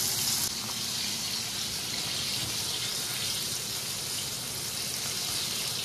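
Small flour-coated perch pieces frying in hot oil in a cast-iron skillet: a steady sizzle, its high hiss easing a little about half a second in.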